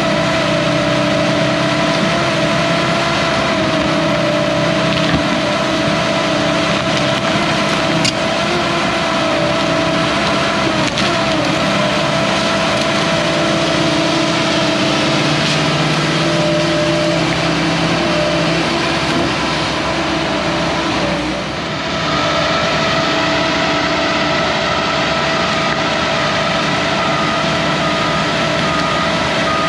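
Hyundai HX210AL excavator's diesel engine running steadily under work, with a steady whine over the engine note. Its level dips briefly about two-thirds of the way through, after which a repeating beeping alarm starts.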